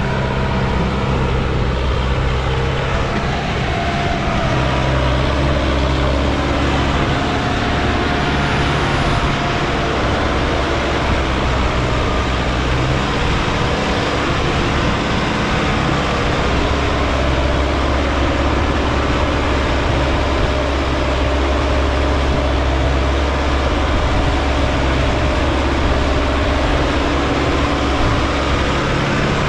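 Sonalika DI 750 tractor's diesel engine running steadily under heavy load, pulling a trolley heaped with soil up a steep climb.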